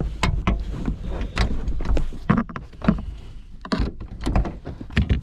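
An irregular run of knocks and clicks as a screwdriver is pushed into the emergency release of a Vauxhall Insignia's boot latch from inside the car and levered to the right, with the boot lid being pushed up to free a faulty latch.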